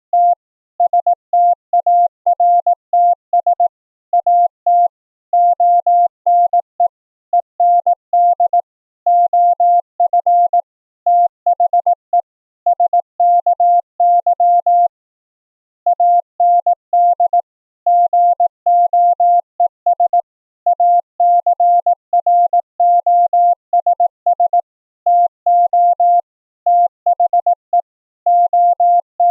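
Morse code (CW) as a single steady mid-pitched tone, keyed on and off in quick dots and dashes with clean silent gaps and no receiver static. It is CW received over an FRS radio and regenerated as a fresh tone. There is a brief pause about halfway through.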